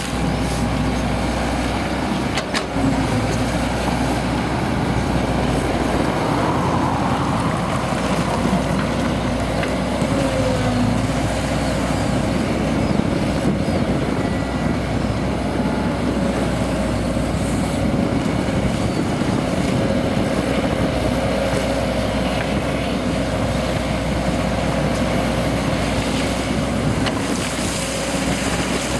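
Caterpillar tracked excavator's diesel engine running steadily under load while it digs and lifts spoil and rock, with a few sharp knocks about two to three seconds in.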